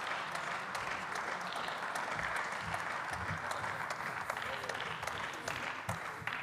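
Applause from part of a parliamentary chamber: many people clapping steadily, dying away at the end.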